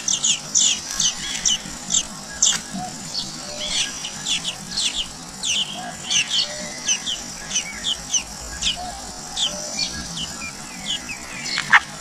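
Nestlings begging while being fed at the nest: rapid high-pitched chirps, several a second, with a few louder down-sweeping calls near the end.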